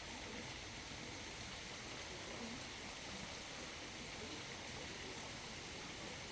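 Faint, steady rush of a mountain stream flowing over rocks.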